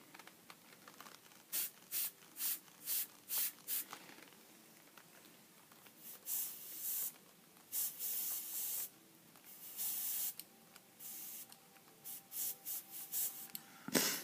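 Airbrush spraying paint in hissing bursts: a quick run of short spurts, then several longer sprays of about a second each.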